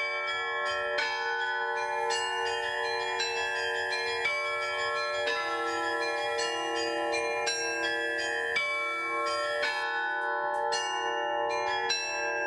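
A set of bronze church bells rung in Russian style: several bells of different pitch struck in quick succession, about two or three strokes a second, their tones ringing on and overlapping. A deeper bell joins about five seconds in, sounding in a steady pulse.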